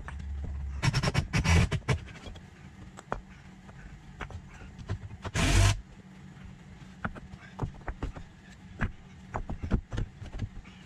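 Old bricks being set and stacked into a low wall, clacking and knocking on one another: a quick cluster of hard knocks about a second in, a short scrape of brick on brick around the middle, then scattered single knocks.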